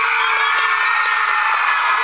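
Crowd of children screaming and cheering, many high-pitched voices overlapping in a steady din.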